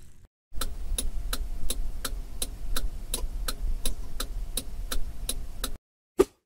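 Ticking-clock sound effect counting down the time to answer a quiz question, about four ticks a second over a low hum. It stops shortly before the end and is followed by one short blip.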